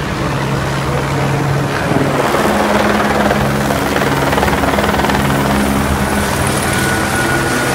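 Helicopter flying overhead at night: a steady drone of engine and rotor, with a thin high whine coming in near the end.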